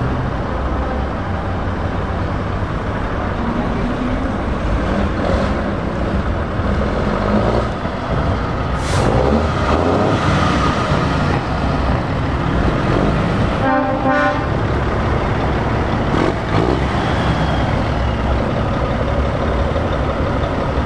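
ERF EC10 tractor unit's diesel engine running as the truck pulls away and drives off, with a brief hiss about nine seconds in. A truck horn toots once, briefly, about fourteen seconds in.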